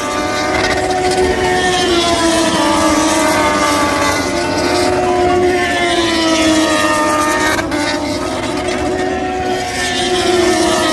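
MotoGP racing motorcycle engines running at high revs on the circuit, a continuous whine that slowly rises and falls in pitch as the bikes accelerate and pass.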